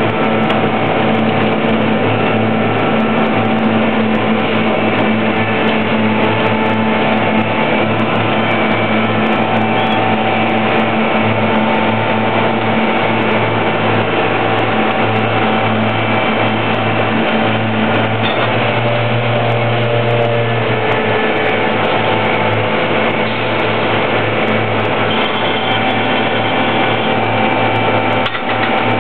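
Large concrete slipform paver running at close range: a loud, steady machine drone with several steady whining tones from its engine and hydraulics. Some of the tones shift in pitch for a few seconds about two-thirds of the way through.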